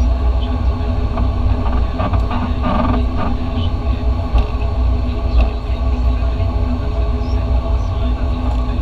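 Turboprop airliner's engines and propellers heard inside the cabin during the landing rollout: a steady drone of several held tones over a deep rumble.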